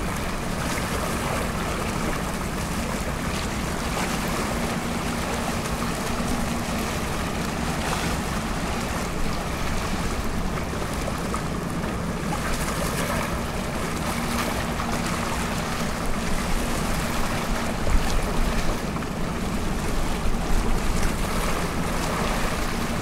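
Ships' diesel engines humming steadily: the departing container ship and its escorting tugboats. Wind buffets the microphone in gusts in the second half.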